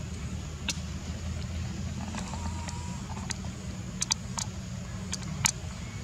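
A steady low hum with about eight sharp clicks scattered through it, bunched toward the second half.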